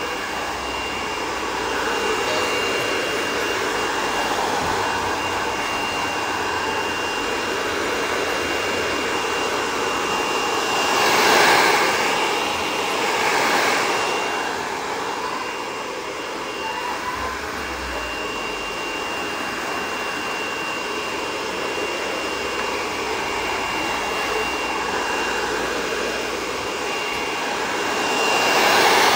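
Handheld hair dryer blowing steadily: a rush of air with a thin, steady high whine running under it. The rush swells louder a couple of times around the middle and again near the end.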